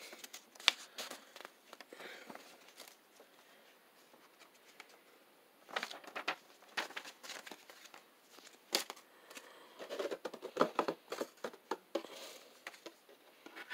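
Clear plastic packaging bag crinkling and rustling as it is handled, along with the cardboard box and its contents being moved, in irregular bursts. A quieter pause comes a few seconds in.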